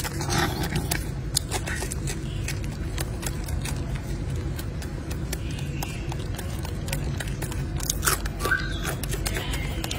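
A golden snub-nosed monkey chewing and biting pieces of yellow fruit: a run of short, irregular mouth clicks, busiest near the start and again about eight seconds in, over a steady low background rumble.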